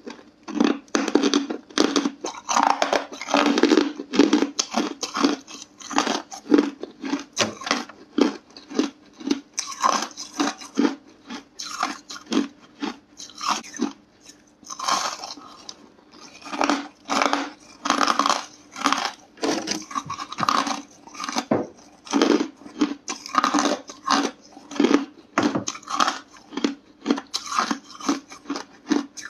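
Hard, crunchy ice being bitten and chewed close to the microphone: a rapid run of loud crunches, several a second, broken by brief pauses between bites.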